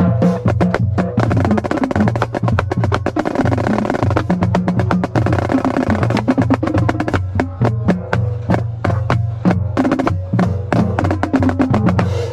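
Marching snare drum played in fast, dense strokes, thickening into roll-like passages in the middle, over a backing song with a steady bass line.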